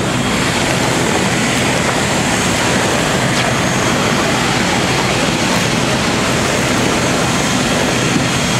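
Steady, loud jet roar from a parked Boeing 777-200ER airliner on the apron, with a faint high whine over it.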